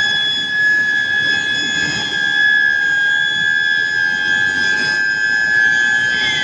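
Steel billet induction heating furnace running: a steady high-pitched whine from the induction coil over continuous machinery noise.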